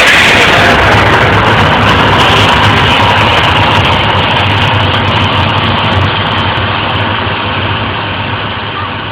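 Loud, steady rushing roar over a low hum from the volcano show's effects, fading away gradually.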